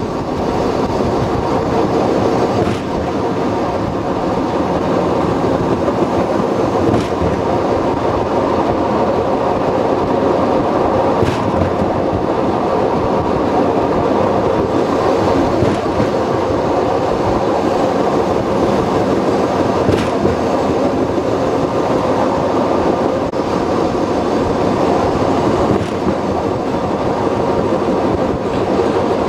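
Open-air tourist trolley car running along the rails: a steady rumble of wheels and running gear on the track, with an occasional clack over rail joints.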